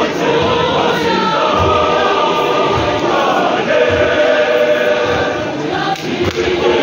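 Large choir singing in many voices, holding long sustained notes.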